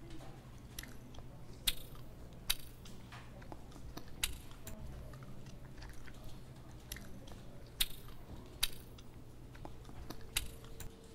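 Close-miked mouth sounds of a person chewing: wet chewing noises broken by sharp crunchy clicks at irregular intervals, a few of them much louder. A low steady hum runs underneath and stops near the end.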